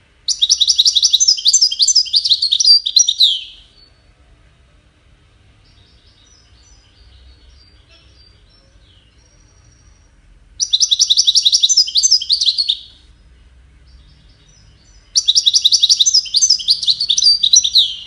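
European goldfinch singing: three loud phrases of rapid, repeated slurred notes, one at the start, one about ten and a half seconds in and one about fifteen seconds in, with soft twittering between the first two.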